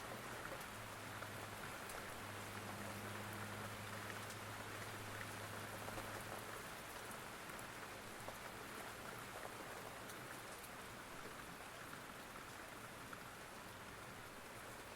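Steady rain falling: an even patter with scattered small drop ticks, and a low hum underneath that fades out about halfway through.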